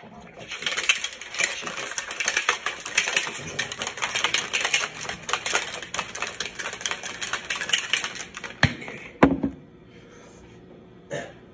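A plastic Ghost shaker bottle holding a pre-workout drink, shaken hard for about eight seconds with a fast, continuous clattering rattle, followed by two sharp knocks about half a second apart.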